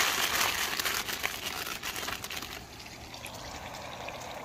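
Steak frying in butter in a pan, a steady sizzle with small crackles, just after being turned over; it eases off after about two and a half seconds.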